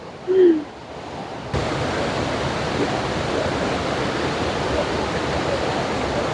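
Waterfall: the steady, even rush of falling water, which cuts in abruptly about a second and a half in.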